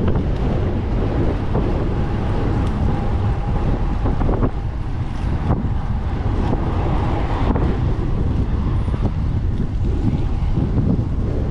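Wind buffeting the microphone of a camera on a moving bicycle, a steady heavy low rumble, with a few brief knocks around the middle.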